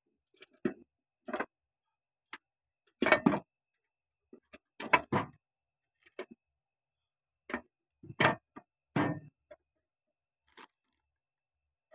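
John Deere 5310 tractor clutch pressure plate being handled and seated by hand: irregular short metal clicks and knocks with quiet gaps between, the loudest a little after three seconds and around five seconds in.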